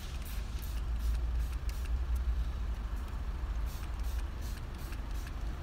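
A small pump spray bottle of car perfume spritzed onto a paper cabin air filter: quick short hisses, about three a second, in two runs with a pause in the middle. A steady low rumble sits underneath.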